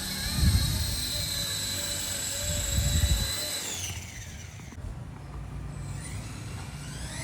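The brushless electric motors of a small 3D-printed RC helicopter whine steadily, then spool down with a falling pitch about four seconds in. After a short lull the whine climbs again as the rotor is throttled back up near the end. Two low gusts of rotor wash buffet the microphone in the first three seconds.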